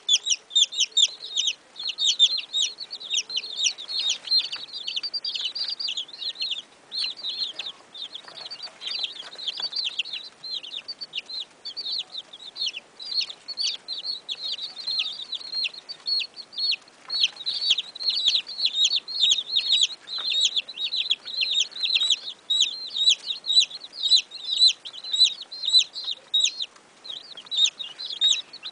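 A brood of baby chicks peeping without pause: many short, high, falling peeps overlapping, several a second.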